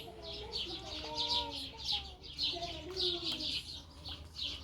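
Birds chirping in a fast, steady series of short high calls, with lower wavering calls mixed in.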